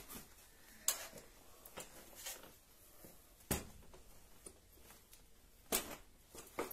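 Garmol folding shopping trolley being handled as its metal frame is pulled down into place: a scattered series of short, sharp clicks and knocks, about six or seven over several seconds, the loudest about three and a half and nearly six seconds in.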